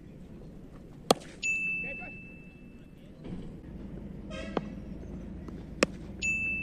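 Two sharp cracks of a cricket bat striking a taped tennis ball, about five seconds apart. Each is followed a moment later by the same held high ding effect lasting about a second and a half. A brief voice calls out between them.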